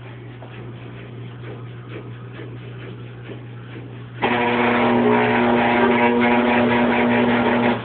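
Motor of an old, worn-out machine starting abruptly about four seconds in. It runs as a loud, steady drone for about three and a half seconds, then cuts off suddenly. Before it there is only a faint steady low hum.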